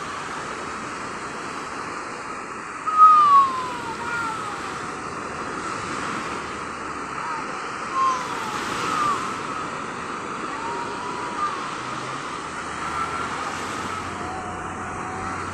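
Sea surf washing steadily with wind, and short high falling calls sounding now and then over it, the loudest about three seconds in.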